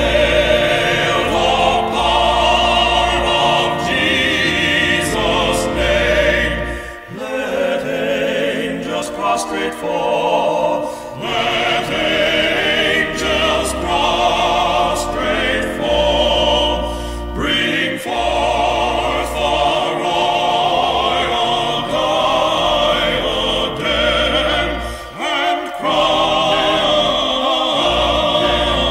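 A male gospel vocal quartet singing a hymn in harmony, from an old, digitally remastered recording.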